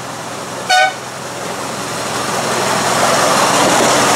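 A brief, loud horn toot from a 7¼-inch gauge diesel-outline miniature locomotive about a second in, followed by the locomotive and its passenger cars running past close by, growing steadily louder as they near.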